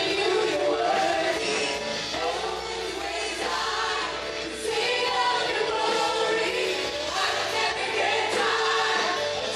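Music with a choir of voices singing.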